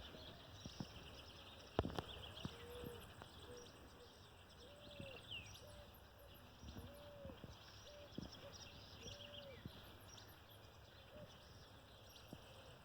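Faint birds calling: scattered high chirps, and a string of short, arched low calls repeating about once a second through the middle.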